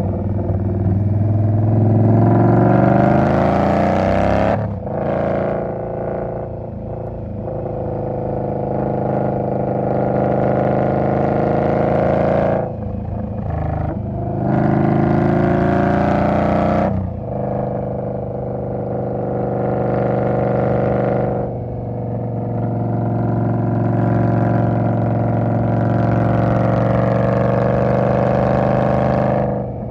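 2020 Indian Scout's V-twin engine running under load. Its pitch climbs steadily and then drops sharply, about five times, as at gear changes while accelerating.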